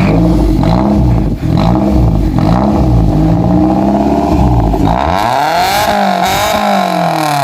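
Maruti Suzuki Zen revving through a straight-pipe exhaust with the muffler removed: a loud series of quick throttle blips, then one longer rev that rises and falls near the end.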